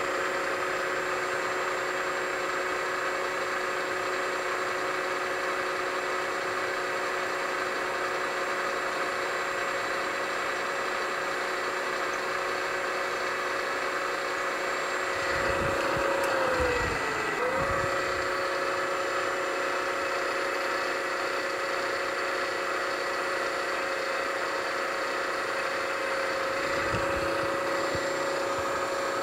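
Milling machine spindle running a small end mill through the metal of a model steam engine base while cutting a port, a steady motor whine. A little past halfway its pitch sags briefly and then recovers.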